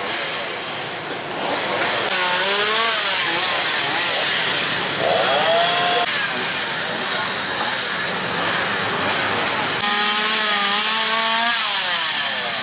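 Chainsaw running and cutting through a storm-felled tree, its engine pitch rising and falling as it is revved several times.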